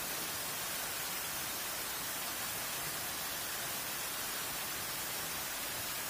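Steady, even rushing hiss of water falling down an artificial rock waterfall into a pool.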